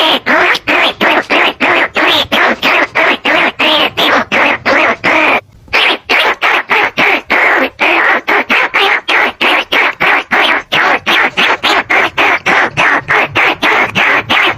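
Rat squeaks played as a lure call for greater bandicoot rats and rice-field rats: quick squeaky calls repeated about four times a second, with one short break about five and a half seconds in.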